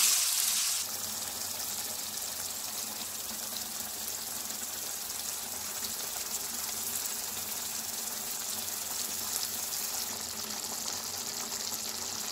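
Chopped tomatoes sizzling in hot oil in an open pan as they cook down in their own juice: a steady frying hiss, louder for about the first second.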